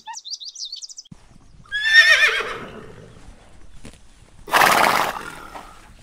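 Horse whinnying once, a loud wavering call that falls in pitch, followed about two and a half seconds later by a loud, breathy snort lasting under a second.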